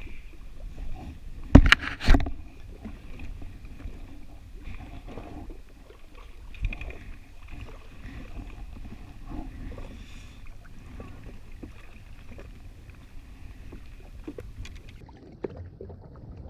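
Yamaha WaveRunner FX HO jet ski's four-stroke engine running low and steady, holding the ski in place, with a faint steady high whine over the rumble. Two sharp knocks come about a second and a half in.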